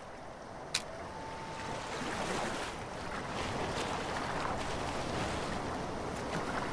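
Wind and small waves on open bay water: a steady rushing wash that swells slightly, with a single sharp click just under a second in.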